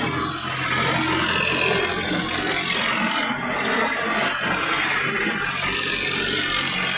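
Tractor diesel engine running steadily as the tractor drives, with a constant loud rattle and clatter from the machine.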